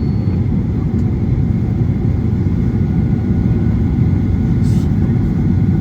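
Steady low cabin rumble inside a Boeing 737-900 after landing, from the engines and the cabin air, with a brief hiss nearly five seconds in.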